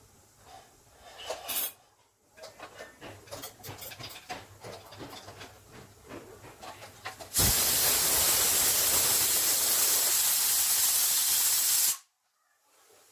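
A pressure cooker on a gas stove venting steam: a loud, steady hiss that starts suddenly about seven seconds in, lasts about four and a half seconds, and cuts off suddenly. Before it come light clinks and knocks of kitchen utensils.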